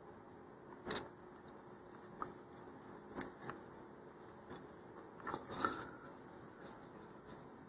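Small handling noises as fingers press and rub a self-adhesive decal onto a cardboard model-rocket body tube: scattered light taps and rustles, with a sharp tap about a second in and a cluster of louder rustles and knocks about five and a half seconds in as the finned rocket is picked up and turned.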